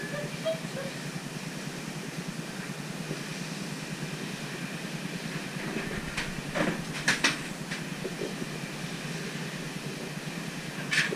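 Steady low background noise, broken by a few sharp knocks about six to seven seconds in as a plastic pet carrier is lifted off a ledge, and one more knock near the end as it is set down on the tile floor.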